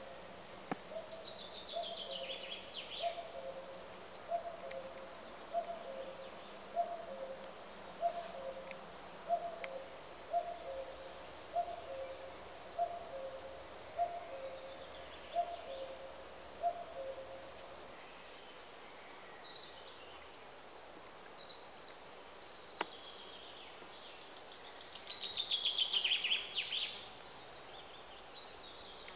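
Woodland birdsong: a low, hooting two-note call repeated about once a second for the first half, with higher songbird phrases over it, the loudest a descending trill near the end.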